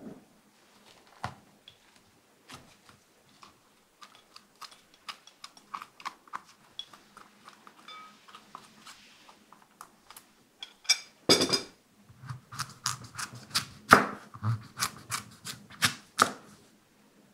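Spoon scraping seeds out of a halved sweet pumpkin (kabocha) into a glass bowl: soft scrapes and small clicks. About eleven seconds in, a kitchen knife cuts through the pumpkin on a wooden cutting board, a run of sharp knocks about two or three a second.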